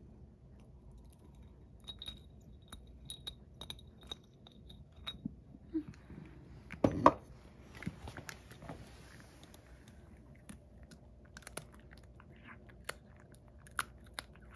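A cat chewing a dried sardine (niboshi), a scatter of small crisp crunches, with one louder knock about seven seconds in.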